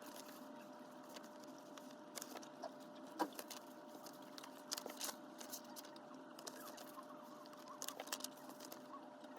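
Quiet room tone with a faint steady electrical hum and a scattered run of small, soft clicks and taps.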